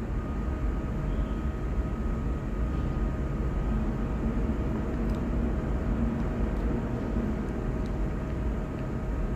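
Steady low rumble and hum of an underground subway station, with no train passing close by.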